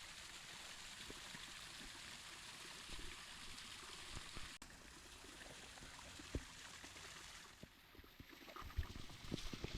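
Faint, steady trickle of spring water flowing, with a few soft low knocks near the end.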